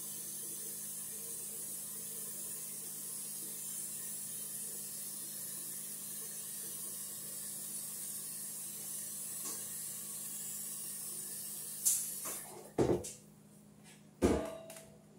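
Steady hiss with a low hum from a pot of water heating on the stove toward a boil. It stops about twelve seconds in, followed by a few knocks and clatters.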